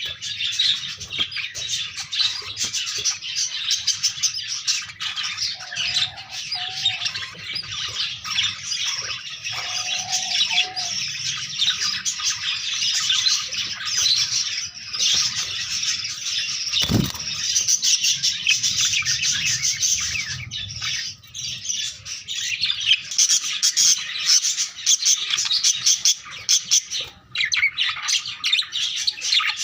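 Budgerigars chattering and chirping nonstop, many overlapping warbles and chirps, with a single sharp knock about halfway through.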